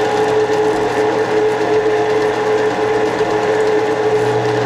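Harbor Freight benchtop drill press running at a steady speed with a steady hum while a center drill cuts a starter hole into an aluminum block.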